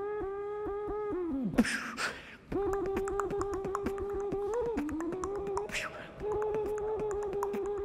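Beatboxing through a hand cupped over the mouth: a held, hollow hummed note kept on one pitch and chopped by rapid mouth clicks in a steady rhythm, broken twice by a short hissing rush of breath.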